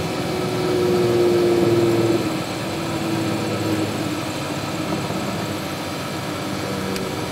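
Aircraft engine running at low power, heard from inside the cockpit during the landing flare. A steady tone sounds over it for about a second and a half near the start, then comes and goes in short pieces.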